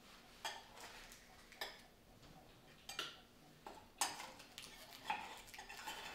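A metal knife and spatula clinking and scraping against a metal mini muffin tin as baked phyllo pastry purses are pried out, about six faint separate clinks.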